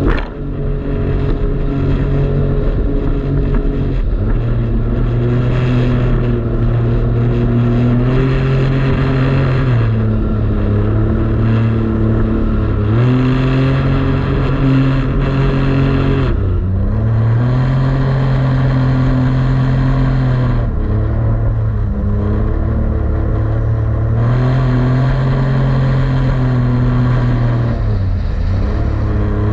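Jet ski engine running under throttle, its pitch falling and climbing again several times as the throttle is eased off and opened back up.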